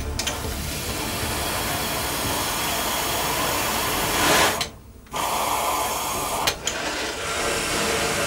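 Steam rushing through a steam locomotive's injector as its steam valve is opened by hand to feed water into the boiler: a steady hiss that cuts out briefly about halfway, with a sharp click a little later.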